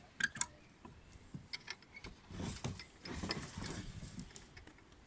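Handling noises: a few light clicks and knocks right at the start, scattered small ticks, then a couple of seconds of rustling and shuffling.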